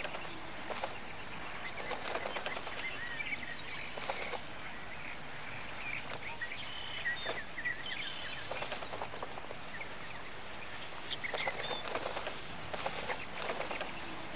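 Thrashers mobbing a snake: wings flapping and brushing against the cactus in repeated short rustles and clicks, with scattered brief chirping calls.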